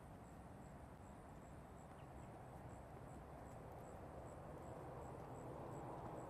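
Faint outdoor ambience: a steady low rumbling hiss that grows slightly louder near the end, with a faint high chirp repeating about three times a second.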